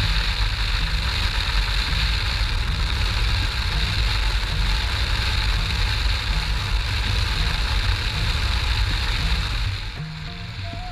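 Motorcycle riding at road speed: the engine running under heavy, steady wind rush on the helmet camera's microphone, loudest in the low rumble. About a second before the end the noise drops a little and a single steady tone comes in.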